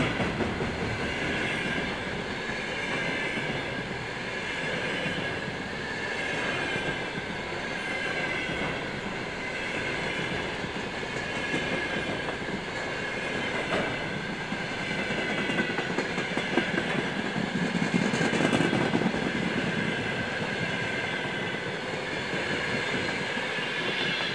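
Long freight train of container flat wagons rolling past at about 55 km/h, a steady rolling rumble with a high squeal running through it. A brief louder squeal comes about a second and a half in.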